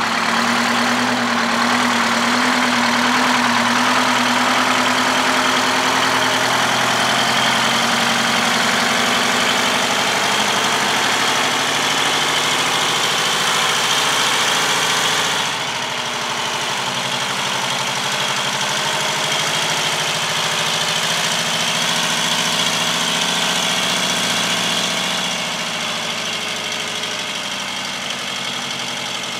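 Diesel semi-truck engine running at low revs while the cabover prime mover slowly pulls an empty low-loader trailer. The sound drops in loudness about halfway through and again near the end.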